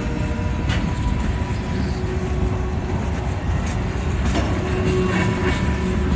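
Freight train of tank cars rolling past close by: a steady low rumble of steel wheels on rail, with a few sharp clicks and clanks from the wheels and couplers.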